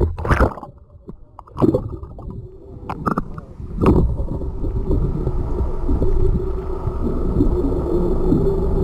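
Action camera going under the sea surface with a splash, then muffled underwater sound: a low rush of water with a few knocks in the first seconds and a steady hum through the second half.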